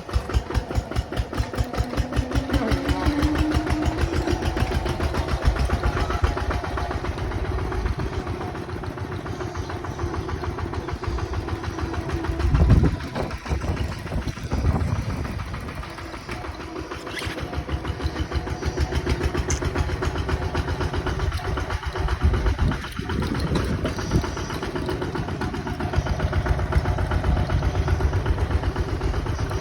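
Bulldozer's diesel engine running with an even, rapid chugging pulse, rising in pitch briefly near the start as it revs. A single louder knock comes about halfway through.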